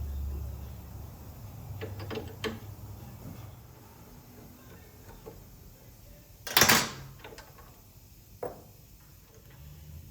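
Workshop handling noises from working on a motorcycle brake: a few light clicks and knocks, and one loud, short burst of noise about two-thirds of the way through.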